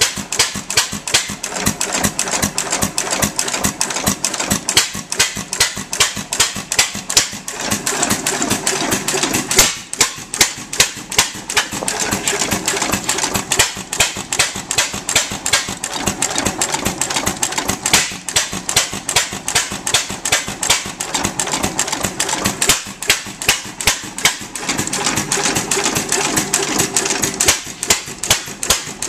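A 3 1/2 HP Gould Shapley & Muir hit-and-miss gas engine running, its valve gear and igniter linkage clattering in a fast, steady rhythm with regular louder beats.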